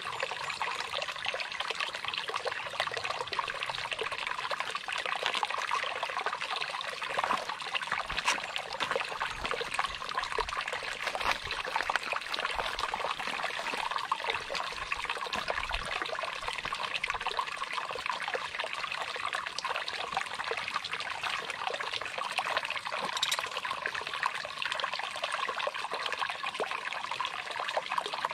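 Shallow rocky stream trickling over stones, a steady sound of running water.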